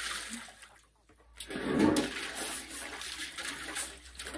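Water being poured and splashing into a basin, with a brief gap about a second in and the loudest rush about a second and a half in.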